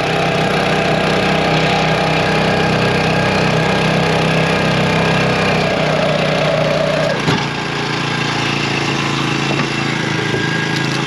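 Small 4-horsepower four-stroke outboard motor running steadily as it pushes a jon boat along. About seven seconds in there is a click and the engine note drops a little in level.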